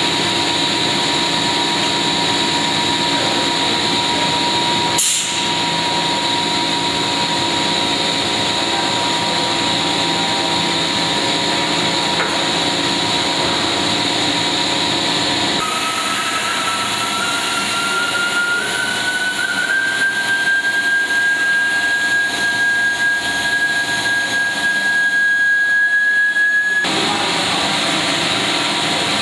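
Extrusion blow molding machine running with a steady mechanical hum and a sharp click about five seconds in. About halfway through a high hiss starts, with a thin whistle slowly rising in pitch, and both cut off abruptly near the end.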